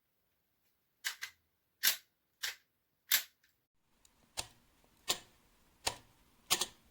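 A series of sharp clicks or snaps, about eight in all, spaced roughly 0.7 s apart, some of them double. They begin about a second in after dead silence.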